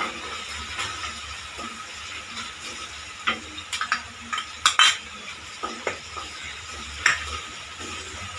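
Sauce frying in a steel kadhai while a wooden spatula stirs it, as flour paste is added to the pan. Several sharp clinks of a steel spoon and utensils against the pan, clustered about halfway through and again near the end.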